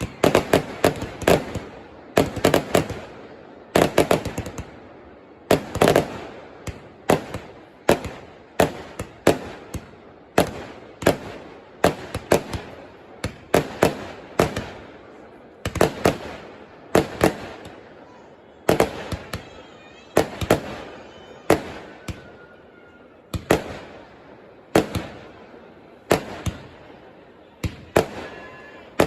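Fireworks display: a continuous series of sharp bangs from bursting aerial shells, about one or two a second, each with an echoing boom.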